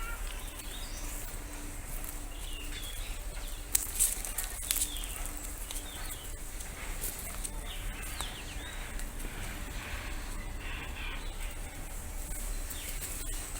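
Small birds chirping and twittering on and off, with a few sharp clicks about four seconds in, over a low steady rumble.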